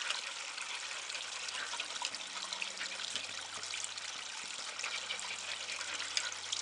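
Steady trickle of running water in a garden fish pond, with small splashes and a faint low hum underneath.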